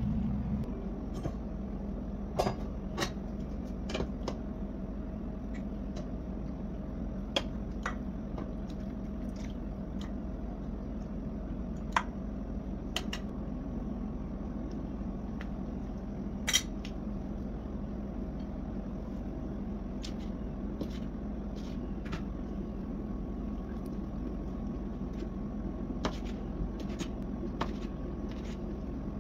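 Scattered light clicks and knocks of a spoon against a ceramic bowl and a knife on a plastic cutting board as soft boiled offal is handled and sliced, over a steady low kitchen hum.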